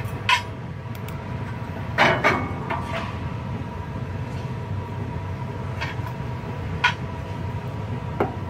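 Steel baffle plates being lifted out of a biomass furnace's heat exchanger: scattered metallic clanks and knocks, the loudest a cluster about two seconds in, over a steady hum.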